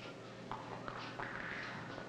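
Dancers' feet landing and stepping on a studio floor: irregular soft taps and thuds, several a second, over a faint steady hum.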